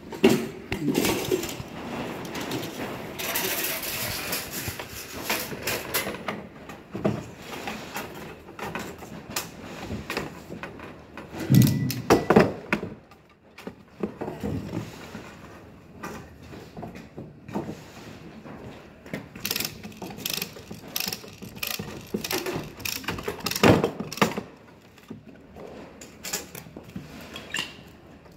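Banding strap being pulled around a bundle of lumber and worked with hand strapping tools: irregular metallic rattles, clicks and scrapes, with a few louder knocks about halfway through and again near the end.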